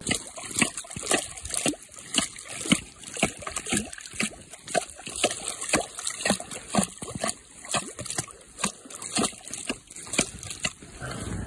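Hatchet chopping at a hole in lake ice, about two blows a second, each blow cracking ice and splashing in the water and slush that fill the hole.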